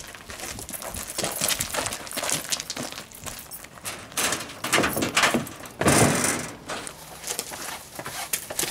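Footsteps crunching on gravel, uneven and irregular, with a louder, longer scraping crunch about six seconds in.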